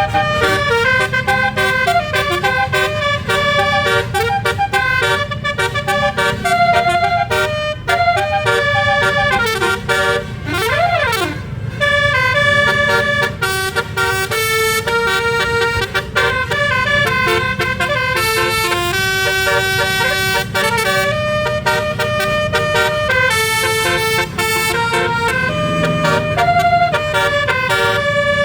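Bus 'telolet basuri' 12-note musical air horn playing fast melodic runs, changing note every fraction of a second with several tones sounding together, over a low steady rumble. About ten seconds in it makes a quick up-and-down pitch sweep.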